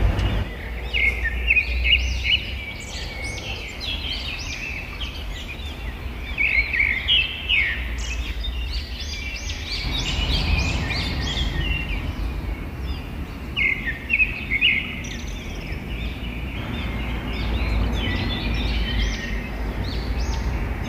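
Several wild birds chirping and singing in quick, overlapping phrases over a steady low rumble of outdoor background noise.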